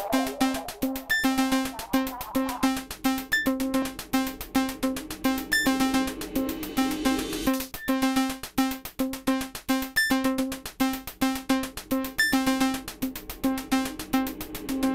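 Background electronic music: a synthesizer line over a steady, quick drum-machine beat.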